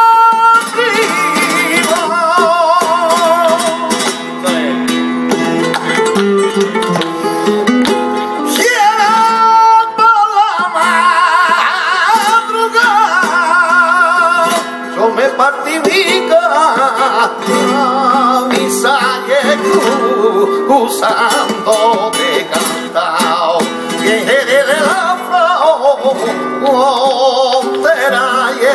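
Flamenco cante in the soleá apolá style: a man sings long, wavering, ornamented lines over flamenco guitar, with handclap palmas keeping the rhythm.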